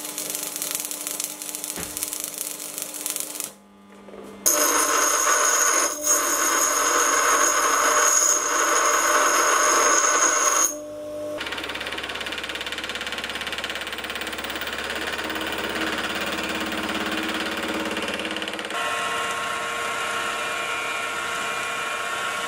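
Arc welding crackle on mild steel for the first few seconds. After a short dip, a louder power-tool run with a steady high whine lasts about six seconds. Then a Sieg X2.7L milling machine cuts the welded steel bracket with an end mill, and in the last few seconds a drill bit bores a hole in it, with a steadier mid-pitched tone.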